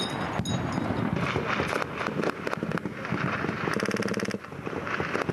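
Gunfire in a firefight: a dense run of cracks and pops over steady noise, with a short buzzing tone about four seconds in.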